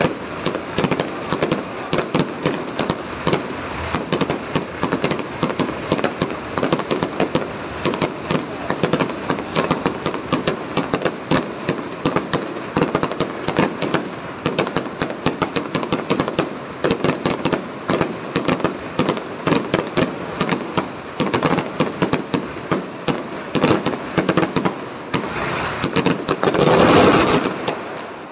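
An aerial fireworks display: shells bursting in a rapid, continuous barrage of bangs and crackles. Near the end the sound swells to a louder rush that peaks and then falls away.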